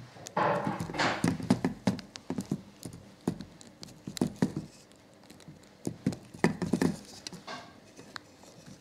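Fingers fiddling with a tiny lipo battery plug on a micro quadcopter, giving a scatter of small plastic clicks and taps with some handling rustle as he tries to connect it.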